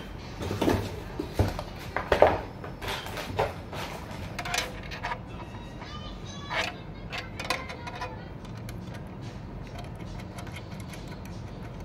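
Small clicks and rattles of WiFi antenna cables being handled and screwed onto the gold threaded antenna jacks on the back of a PC, many in the first eight seconds, then only light handling noise.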